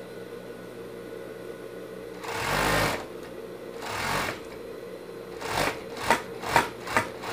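Industrial overlock (serger) machine sewing a knit side seam: a steady hum, then short runs of stitching about two seconds in and around four seconds, followed by a few quick sharp spurts near the end.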